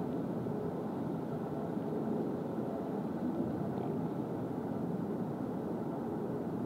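Steady, even low background rumble with no calls or distinct sounds standing out.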